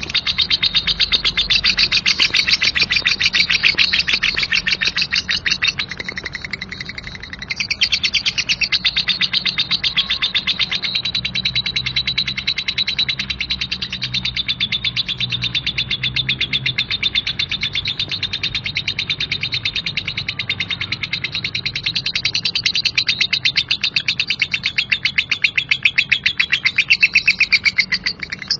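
Lovebird giving a long, rough ngekek: a rapid, high-pitched chattering trill of many pulses a second, kept up almost without a break, easing briefly about six seconds in before it resumes.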